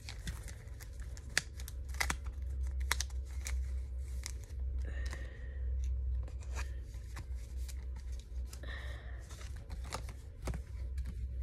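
Pokémon trading cards and their wrapper being handled: a scattered run of sharp clicks and snaps, with brief rustling about five seconds in and again near nine seconds.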